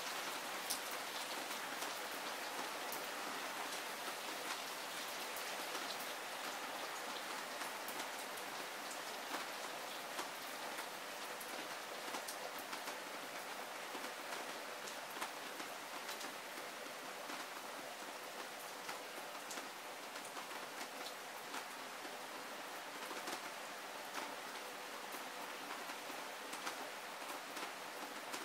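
Heavy rain falling steadily: a dense, even wash of sound with many sharp ticks of individual drops striking, easing slightly toward the end.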